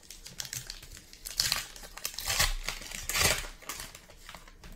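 A 2021 Topps Heritage Baseball card pack's wrapper being torn open and crinkled by hand, in several short rustling bursts about a second apart.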